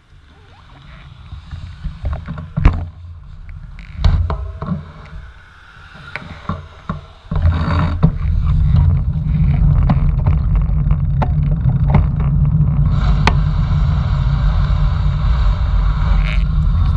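Wind buffeting a bicycle-mounted camera's microphone, setting in abruptly about seven seconds in as the bike rolls off, then steady and loud. Before that, scattered clicks and knocks while the bike stands still.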